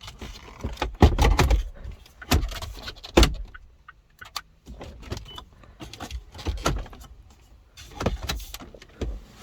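Irregular knocks, clicks and rustles of plastic dashboard trim and wiring being handled and pushed back into place, with the sharpest knocks about a second in and again just after three seconds.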